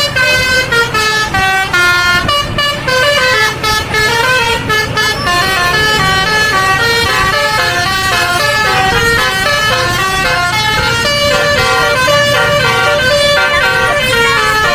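Indonesian 'telolet' bus horn, a multi-tone musical air horn, playing a fast melody of short notes that step up and down in pitch, at first in broken phrases and then without a break.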